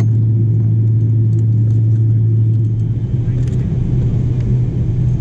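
Cabin noise of a Boeing 777-300ER taxiing: a steady low hum and rumble from its GE90 engines at idle, heard through the cabin.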